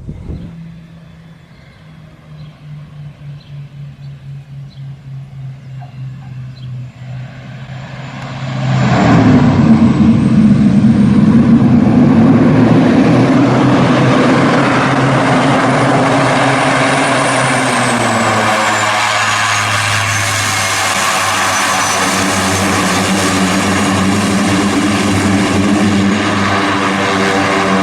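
Beechcraft King Air twin turboprop engines running. At first the sound is lower and pulses about twice a second. About nine seconds in it grows much louder and stays loud, with a high turbine whine that falls in pitch a little later.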